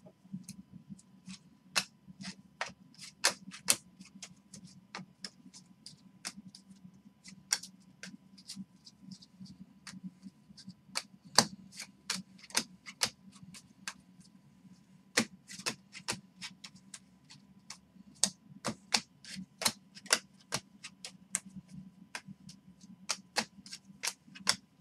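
Baseball trading cards being flicked one at a time off the top of a hand-held stack, each card giving a sharp click or snap, irregular, roughly two a second, over a low steady hum.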